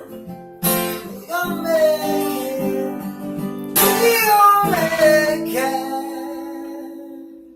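Music: strummed acoustic guitar chords with wordless singing gliding over them, the last chord left ringing and fading out near the end.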